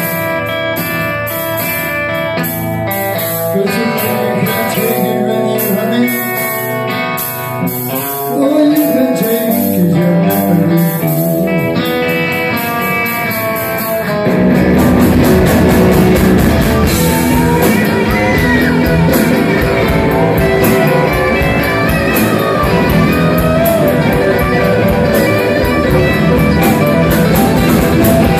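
Live rock and roll trio playing electric guitar, electric bass and drum kit. The first half is lighter and led by the guitar, and about halfway through the full band comes in louder, with heavy bass and drums.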